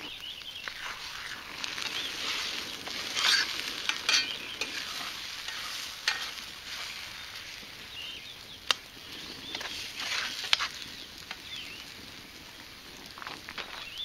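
Beaten eggs with peppers, onions and meat sizzling in a cast iron skillet, a spatula scraping and stirring through them in a series of short strokes.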